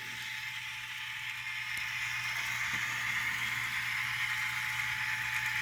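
N scale model locomotive powering up on DC and starting to roll, a steady motor and wheel whirr that grows slowly louder.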